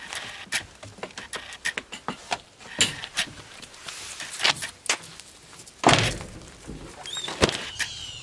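Scattered clicks and knocks of a pet carrier, crates and leash being handled at a van's open side door, with a heavy thunk about six seconds in and a sharp knock about a second and a half later. Short bird chirps come in near the end.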